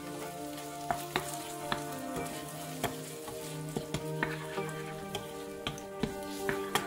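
Chicken and egg sizzling as they fry in a wok, stirred and tossed with a slotted spatula that clicks and taps against the pan many times.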